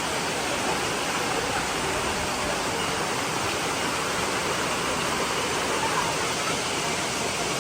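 Steady rush of a tall waterfall crashing into its pool, heard close to the base where its water and spray reach.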